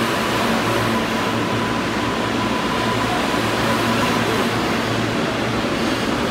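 New York City subway train running: a steady rushing noise with a constant low hum, and a faint high tone that fades out in the first half.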